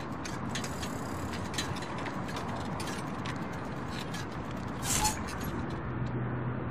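A bicycle ridden up and brought to a stop, its freewheel and chain ticking and rattling in irregular clicks. There is a louder clatter about five seconds in.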